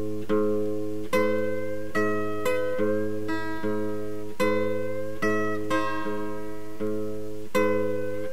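Background music: plucked acoustic guitar chords, each struck and left to ring, at an even pace of about two a second.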